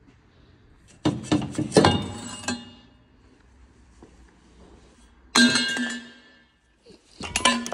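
Metal exhaust parts clanking and clinking in three bursts, about a second in, past five seconds and near the end, each with a brief metallic ring.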